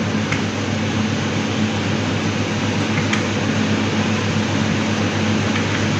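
Steady room noise, a hiss with a low hum under it, with a few faint ticks of a marker on the whiteboard.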